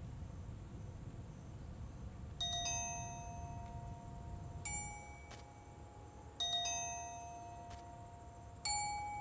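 Four bell-like chime strikes about two seconds apart, each ringing on and fading, over a faint low rumble at the start.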